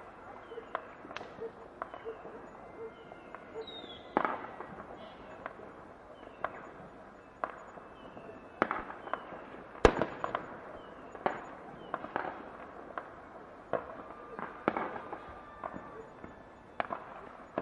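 Fireworks going off: sharp bangs at irregular intervals, the loudest about ten seconds in, mixed with short falling whistles.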